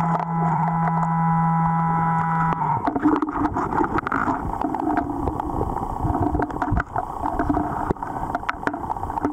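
Garrett Pro-Pointer AT pinpointer sounding a steady buzzing alarm while held right over a buried metal target, heard through the water; the tone cuts off after about two and a half seconds. Then river gravel and stones grinding and clicking as a hand digs through the bed for the target, a horseshoe ring.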